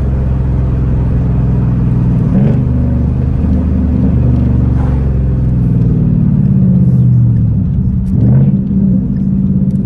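Ford Mustang GT's 5.0 V8 heard from inside the cabin while being driven through downshifts. The engine note rises in pitch three times, about two and a half, five and eight seconds in, between stretches of steady running.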